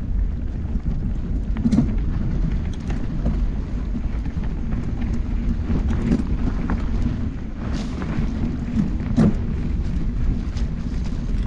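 Mountain bike rolling slowly over a dirt singletrack, heard through a handlebar-mounted camera: a steady low rumble from the tyres and bike vibrating on the rough ground, with scattered sharp knocks and rattles over bumps.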